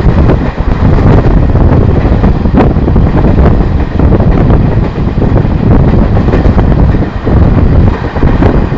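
Heavy wind buffeting the microphone of a passenger train running at speed, over the steady rumble of the coaches on the track.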